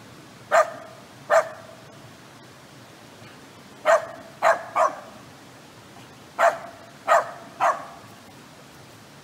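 Kai Ken dog barking: eight short, sharp barks in three bursts, two, then three, then three, over a steady hiss.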